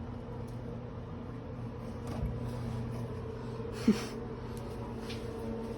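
Steady low mechanical hum from a running appliance or machine, with one short sharp click about four seconds in.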